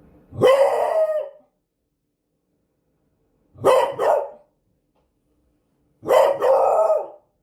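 A beagle barking in three bouts: a drawn-out bark about half a second in, a quick double bark around the middle, and another double bark with a longer second note near the end.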